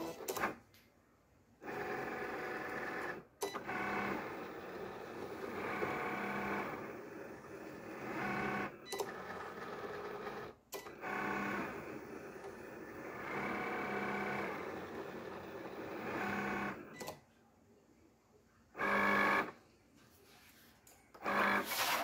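Cricut electronic cutting machine running a cut on glitter heat-transfer vinyl: its motors whir in repeated stretches of a few seconds as they drive the mat and blade carriage back and forth, with brief pauses and clicks between moves. A shorter whir comes near the end as the mat is fed out.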